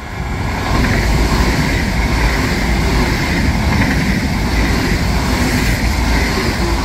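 Frecciarossa 1000 high-speed electric train passing through a station at speed without stopping: a loud rush of wheels on rail and air that swells about a second in, holds steady as the cars go by, and starts to fade near the end.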